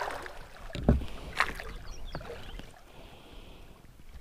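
A hooked peacock bass splashing and thrashing at the surface beside a small fishing boat, with a heavy thump about a second in and a sharp click shortly after.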